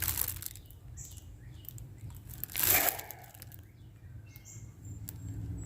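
Hands handling the kit and its packaging: irregular rustling and crinkling, with one louder crinkle about two and a half seconds in.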